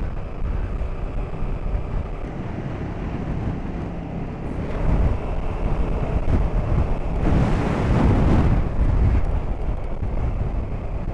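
KTM 1290 Super Duke GT's V-twin engine running at road speed, with wind rushing over the microphone; the wind noise swells for a couple of seconds about seven seconds in.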